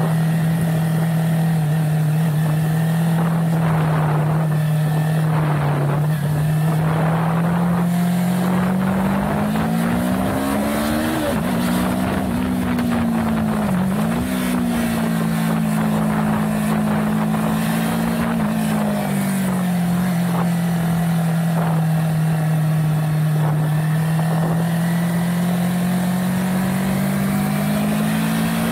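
Yamaha 300 motorcycle's parallel-twin engine running on a circuit lap, heard from an on-bike camera: a steady engine note that climbs about ten seconds in, dips sharply and recovers a few seconds later, eases back, then climbs again near the end, with wind rush over the microphone.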